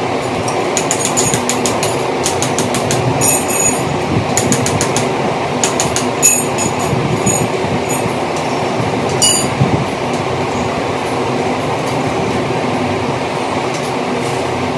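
Light clicks and clinks come in several short clusters over the first ten seconds or so as metal shoe-rack pipes are pushed into their plastic junctions. A loud, steady rumbling background noise runs underneath.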